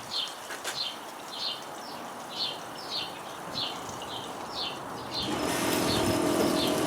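A bird chirping repeatedly, short high notes about twice a second. About five seconds in, the Frigidaire dishwasher's wash motor and circulation pump start with a steady hum and a rush of water, louder than the bird: the pump is circulating water again now that the impeller on the motor shaft has been reconnected.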